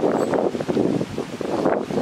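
Wind buffeting the microphone, a dense crackling rumble, with leaves rustling.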